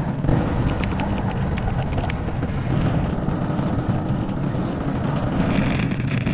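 1960 Vespa scooter's single-cylinder two-stroke engine running as it is ridden, a steady low rumble, with a brief run of sharp clicks and rattles about a second in.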